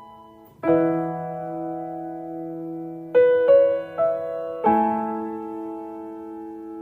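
Slow, soft piano background music: sustained chords struck every second or two, each left to ring and fade.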